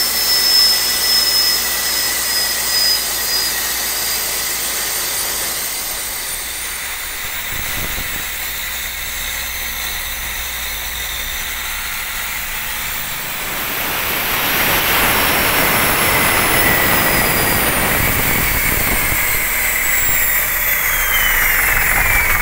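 Isuzu NHR55's turbocharged four-cylinder diesel running on the road, heard from inside the cab with the engine cover open. It is a steady engine hum with the turbo's thin high whistle gliding up and down. About two thirds of the way through, the engine grows louder as it pulls harder. The turbo has a new cartridge.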